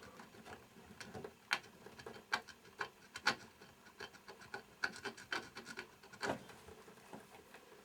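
Faint scratching of solder mask being scraped off a copper trace on a circuit board, in short irregular strokes and clicks a few times a second.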